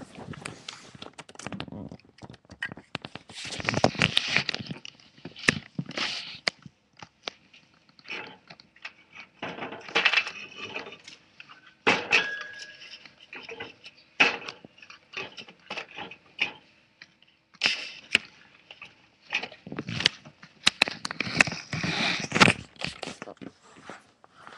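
Handling noise at a pet mouse's cage: irregular clinks, knocks and short rustles.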